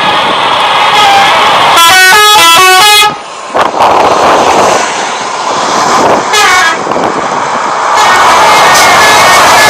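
Telolet horn of a Pandawa 87 bus, a multi-tone musical air horn, playing a fast melody of rapidly alternating notes about two seconds in that breaks off suddenly a second later. It sounds again in a short burst of notes midway and holds a chord of several notes near the end, over loud noise.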